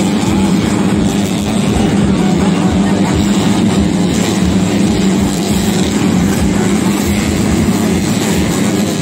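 A pack of stock underbone motorcycles racing on a dirt track, their engines droning together in a loud, steady din.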